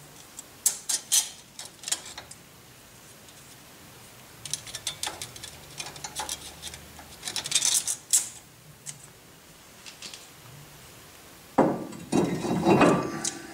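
Light metal clicks and clinks as small parts are handled and seated on a C3 Corvette's bare front wheel hub, then, near the end, a louder metallic scraping and rattling as the brake rotor slides back onto the hub studs.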